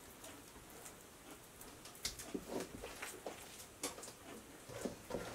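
Hands scooping and shaping raw ground-elk meatloaf mix: faint soft squishes and pats, with a few light clicks starting about two seconds in.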